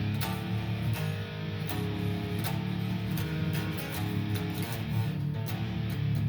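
Guitar playing a self-written metal riff: picked low notes chugging in a steady rhythm, with higher notes ringing over them.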